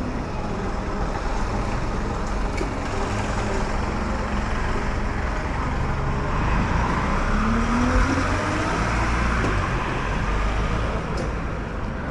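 City street traffic: a steady rumble of passing vehicles, with one engine rising in pitch and getting louder about seven to eight seconds in.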